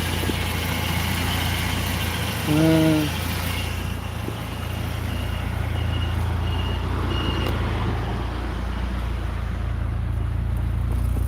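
BMW engine idling steadily, heard from inside the car. About two and a half seconds in there is a short pitched sound, and a little past the middle four short high beeps come evenly spaced, like a parking sensor or reversing warning.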